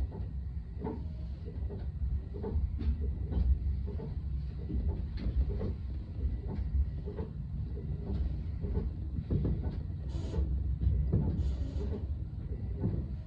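Electric commuter train running, heard from inside the cab: a steady low rumble with frequent irregular knocks and clatter from the wheels and running gear, and two short hisses about ten and eleven and a half seconds in.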